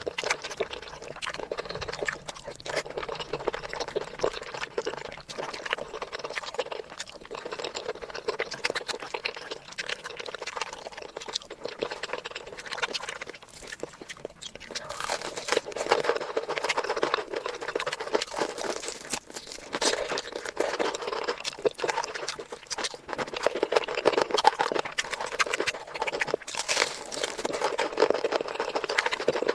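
Close-miked eating sounds: chewing, smacking and wet mouth noises with a dense crackle of small clicks.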